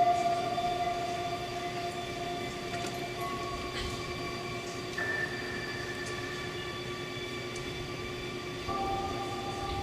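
Slow instrumental music played back through a hall's speakers: long held notes over a steady low drone, with a new note coming in about three, five and nine seconds in.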